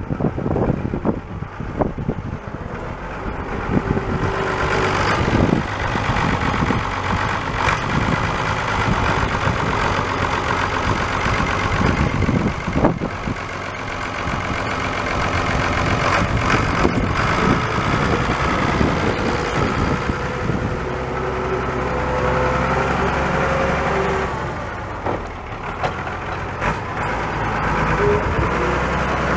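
A Ford 8000 tractor's 6.6-litre six-cylinder diesel engine running as the tractor is driven about. Its pitch and loudness shift during the first two thirds, then it runs steadier.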